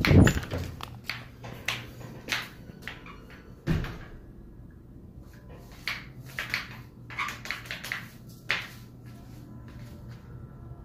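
Phone handling noise: heavy knocks and rubbing as the handheld phone is moved, loudest right at the start, then scattered sharp clicks over a steady low hum.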